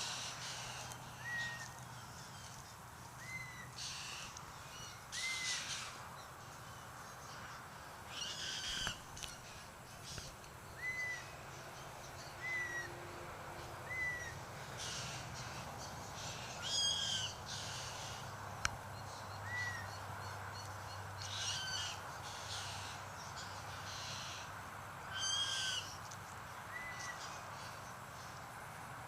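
White-winged choughs calling: short clear whistles, each rising and falling slightly, come every second or two, mixed with several harsh grating calls.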